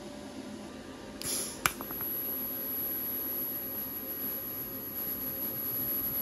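Steady electrical hum from shop equipment. About a second in there is a short hissing burst and a sharp click, after which a louder steady hiss runs on.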